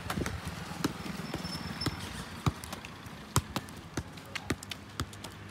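Football being juggled: a run of sharp, irregular taps as the ball strikes the foot and thigh, about two to three touches a second.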